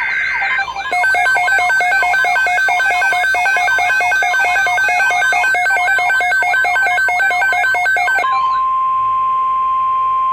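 Emergency Alert System alert tones: a rapidly pulsing electronic warble of several pitches for about seven seconds, then a single steady tone from about eight seconds in, signalling a severe thunderstorm watch about to be read.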